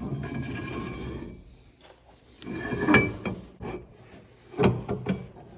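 Mustang rear axle shaft sliding back into the axle housing: about a second of metal scraping, then metallic clunks, the sharpest about three seconds in and again near the end, as it is pushed home.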